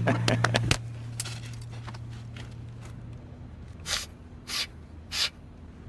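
Three short, sharp sniffs a little over half a second apart, as of a man snorting cocaine, over a low steady hum.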